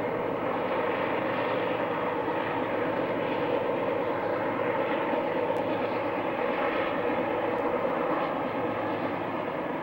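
Two GE C30-7 diesel locomotives passing close by, shoving as rear helpers on a loaded coal train, their 16-cylinder FDL diesel engines running with a loud, steady drone.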